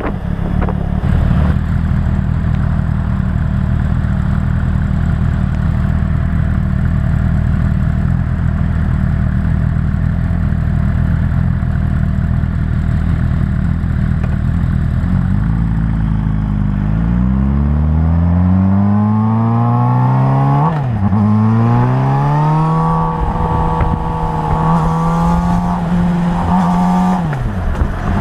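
Suzuki GSR 600's inline-four engine idling steadily, then revving up in rising sweeps with a sharp dip about two-thirds of the way in, held at higher revs and let fall near the end. Under throttle the bike makes a rattle whose cause the owner does not know.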